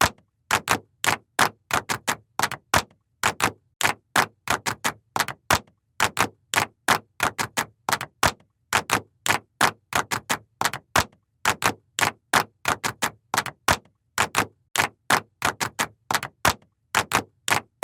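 Stock sound effect of rapid, sharp clicks or ticks, about four to five a second in uneven groups with brief gaps.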